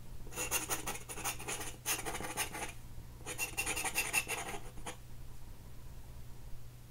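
Two bursts of scratching, the first about two and a half seconds long and the second about one and a half, over a faint steady low hum.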